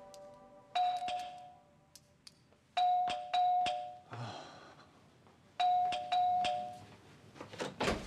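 Doorbell chime rung again and again: a two-strike ding-dong comes back about every two to three seconds. Near the end there are several sharp clicks of a door latch and lock being worked as the door is opened.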